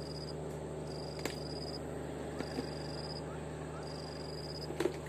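High-pitched animal call: a thin, even note under a second long, repeating steadily about every one and a half seconds over a steady low hum, with a couple of sharp clicks.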